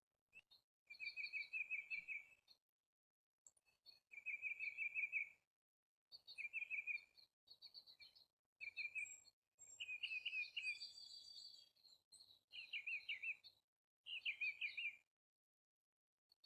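A songbird singing in short, rapid trilled phrases, about seven of them, each about a second long with brief pauses between.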